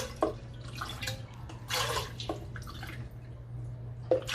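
Water poured from a measuring cup into the Instant Pot's stainless steel inner pot, in a few short splashing pours, over a steady low hum.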